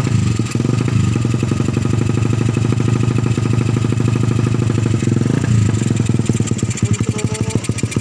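Suzuki Satria FU's 150 cc single-cylinder DOHC engine running loud, with exhaust-profile camshafts fitted for both intake and exhaust. Its pitch rises and falls a few times in the second half as the throttle is opened. The owner likens the sound to a bike with tuned, reground camshafts.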